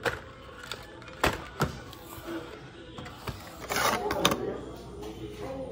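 Cardboard pie boxes handled on a stone countertop, giving a few sharp knocks, then a crackly rustle about four seconds in as a baked pie is slid out of its box.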